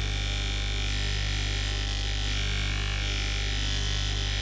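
A bench grinder's motor runs with a steady hum while a small brass threaded fitting is pressed against its spinning wheel, making a continuous steady hiss.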